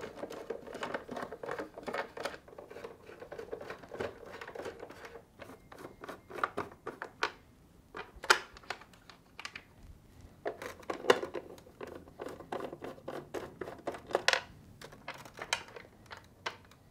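Screws being turned out of a refrigerator's dispenser housing with a 1/4-inch nut driver. A dense run of small clicks and scrapes lasts about five seconds, followed by scattered clicks as the screws are worked loose and picked out.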